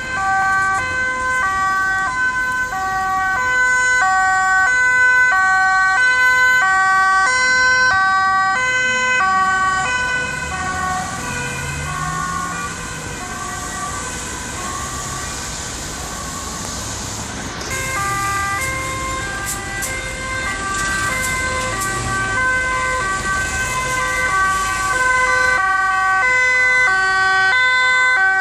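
Two-tone sirens of Dutch emergency vehicles on an urgent run, several overlapping, each stepping between a high and a low note about twice a second. They fade partway through and grow loud again as another police car approaches, with the hiss of traffic passing on a wet road.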